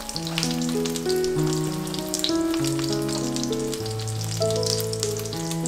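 Egg-battered fish cake and imitation crab skewers sizzling and crackling in cooking oil in a frying pan, over background music of held notes changing every second or so.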